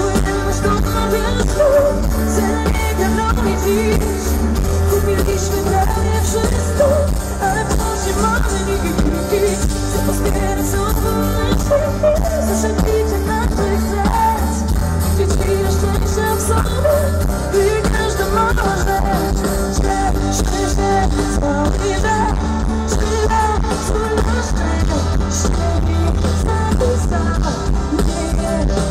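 Live pop song: a woman singing with her own grand piano and a band behind her, heard loud through the stage sound system from within the audience.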